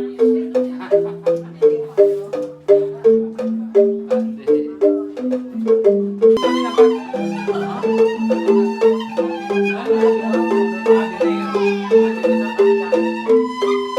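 Balinese rindik, tuned bamboo xylophones struck with mallets, playing a fast repeating interlocking pattern of short notes. About six seconds in, a sustained flute-like melody joins over it.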